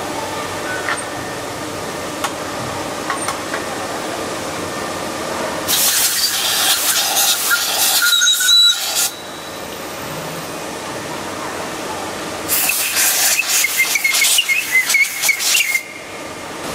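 Steady hum of factory machinery, broken twice by a loud hissing blast lasting about three seconds, each with a squealing tone in it.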